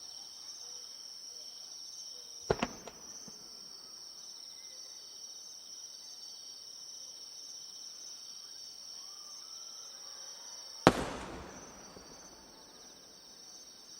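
Large aerial firework shells (12-inch shakudama) bursting: a sharp double bang, then later a single louder boom that rolls away over about a second. Crickets chirp steadily underneath.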